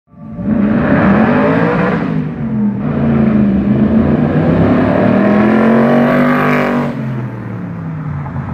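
Cobra roadster's V8 engine accelerating hard, revs climbing, with a short break about two seconds in like a gear change, then pulling up again before dropping off suddenly near the end as the throttle comes off.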